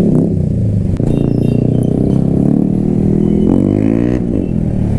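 Motorcycle engine running under way, heard from the rider's own bike. About three and a half seconds in it revs up, rising in pitch for under a second, then drops back.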